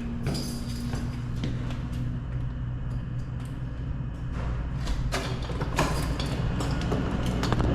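Steady low hum of elevator hoist machinery in a machine room, with scattered sharp clicks and knocks over it.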